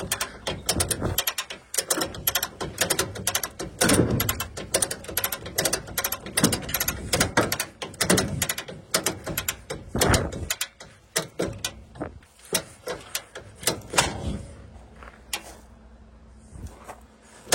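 Come-along hand winch being cranked, its ratchet pawl clicking rapidly in surges of strokes with short pauses, as it strains to pull a stuck copper coil free. The clicking thins out over the last few seconds.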